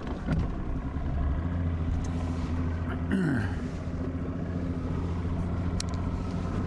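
Bass boat's outboard motor idling along at low speed, a steady low hum. A short falling tone sounds about three seconds in.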